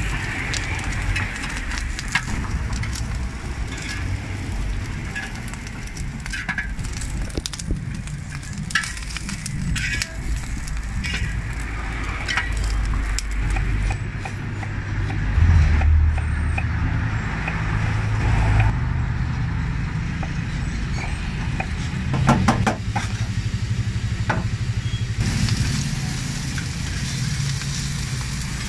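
Chopped pork sizzling on a flat street-taco griddle, with a metal spatula scraping and tapping as it turns the meat. A low steady rumble runs underneath.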